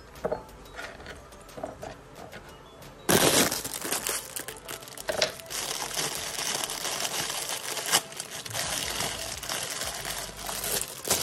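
A thin plastic bag of cherry tomatoes crinkling loudly as it is opened and handled, starting suddenly about three seconds in. Before that there are a few soft knocks.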